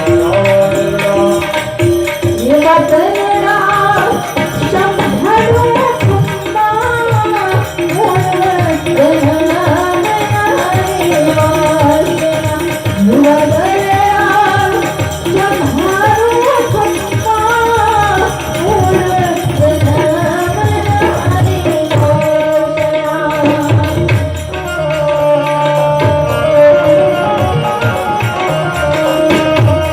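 Gujarati song with tabla accompaniment: a voice sings winding melodic phrases from about two seconds in until about twenty-two seconds in, with a brief break in the middle, then the instruments carry on alone with a steady held note.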